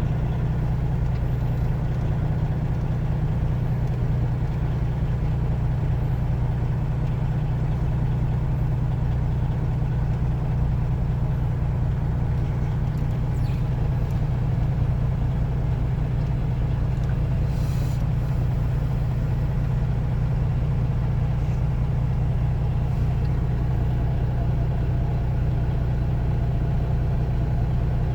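Grain truck engine idling steadily, a constant low hum that neither revs nor changes.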